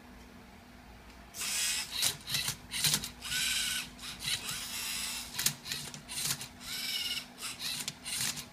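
LEGO Mindstorms EV3 MindCub3r Rubik's Cube robot manipulating the cube. From about a second in, its motors whir in a quick series of short bursts as the turntable spins and the arm tips the cube, with plastic clacks. Several bursts carry a brief whine that rises and falls.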